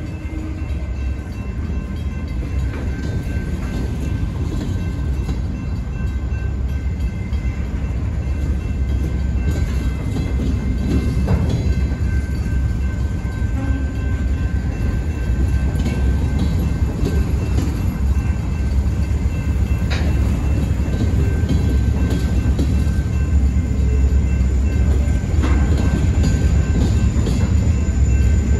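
Heavily loaded freight train of covered hopper cars rolling slowly past a grade crossing: a steady run of wheels on rail that grows gradually louder.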